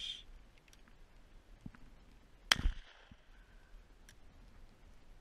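A shotgun fired once, about two and a half seconds in: a sharp crack with a brief low boom trailing after it.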